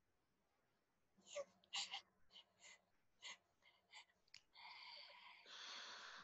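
A woman's breathy mouth sounds, made as if a sheep puppet were sucking at its baby bottle. A run of about ten quick puffs and smacks starts about a second in, then a longer wheezy breath follows near the end.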